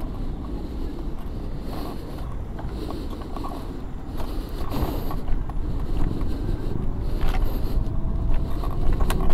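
Lenovo M2 electric scooter ridden flat out toward its 25 km/h top speed: a steady low rumble of wheels and wind that grows louder through the run, with a faint rising motor whine in the last couple of seconds.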